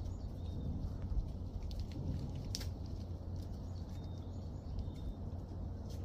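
Footsteps crunching in snow over a steady low rumble of wind on the microphone, with a few faint, short, high bird chirps.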